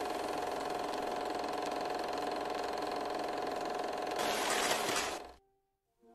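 Whirring mechanical sound effect of a VHS tape rewinding. It runs steadily, grows louder and brighter about four seconds in, then cuts off suddenly about a second later.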